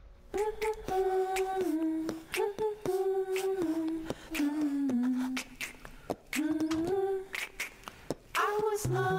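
Intro theme music: a wordless hummed melody of held notes over sharp clicking percussion, dipping lower in the middle and climbing back up.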